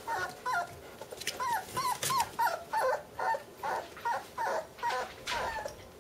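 Bernese Mountain Dog puppies whimpering: a quick series of short, high calls that mostly bend down in pitch, two or three a second, stopping shortly before the end.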